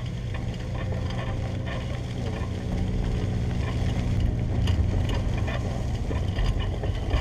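A vehicle riding along a sandy dirt track: a steady low rumble with mechanical rattling and clicking from its parts.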